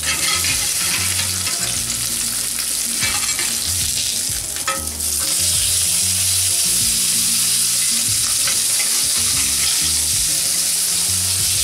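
Tuna steaks sizzling in hot oil in a ridged cast iron grill pan, with a few clicks of a metal spatula against the pan as they are turned. The sizzle grows louder about five seconds in, when a raw side goes down onto the hot pan.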